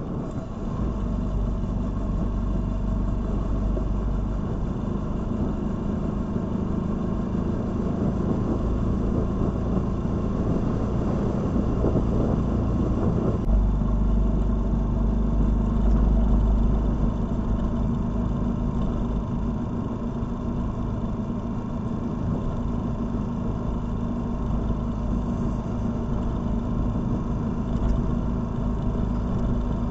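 Motorcycle engine running steadily with road noise during a ride, as picked up by the motorcycle's own dash cam. The low rumble grows louder a little before halfway through.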